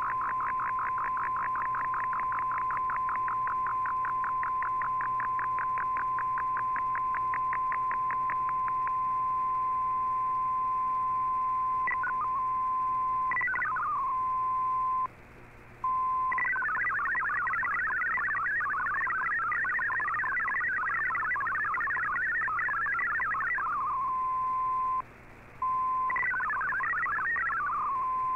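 MFSK digital-mode data broadcast heard through a shortwave receiver in AM: a steady tone with fast, even pulsing over it for the first several seconds, then bursts of rapidly warbling tones. The signal breaks off twice, briefly, in the second half.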